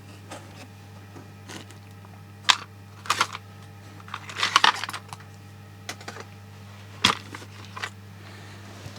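Small electronic components being handled and set down: scattered sharp clicks and light clatter, with a longer rustling patch about halfway through, over a steady low hum.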